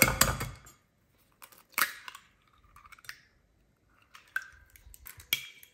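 Eggs being cracked against a mixing bowl for a cake batter: a sharp knock at the start, then several more knocks and crunching of shell.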